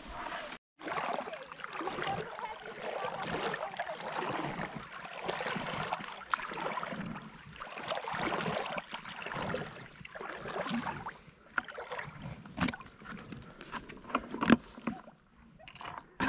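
A paddle working a small boat through the water: uneven swishing and splashing strokes, with a few sharp knocks near the end.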